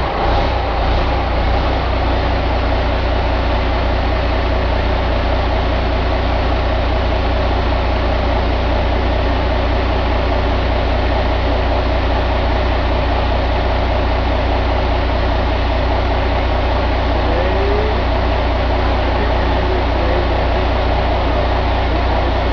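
Caterpillar C12 inline-six diesel engine running steadily at one speed on a test stand.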